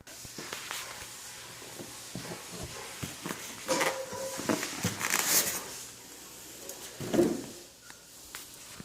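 Cardboard packaging box being handled: rustling and scraping with many small knocks, loudest about four to five and a half seconds in, and a heavier bump about seven seconds in.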